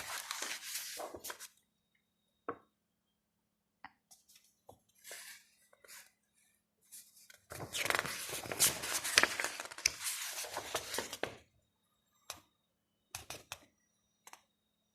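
Photo book pages being turned and handled: paper rustling in a few stretches, the longest lasting about four seconds around the middle, with a few light taps and clicks near the end.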